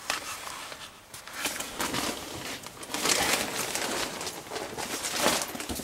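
Irregular rustling and handling noise that grows louder about a second and a half in.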